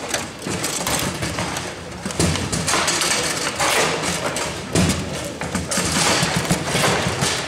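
Table-football game in play: the ball struck by the figures and knocking against the table, with rods clacking, over a steady background clatter. The sharpest knocks come a little after two seconds and just before five seconds.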